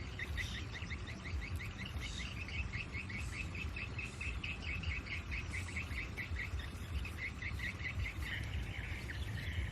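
A bird calling in a fast series of short, falling chirps, about four or five a second, that run together into a blur near the end, over a steady low rumble.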